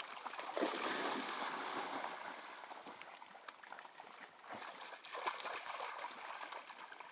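Dogs wading and splashing in shallow pond water: uneven sloshing and splashing, louder about a second in and again around five seconds.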